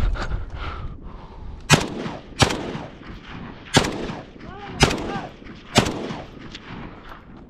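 Rifle fired five times in quick succession, the shots sharp and about a second apart.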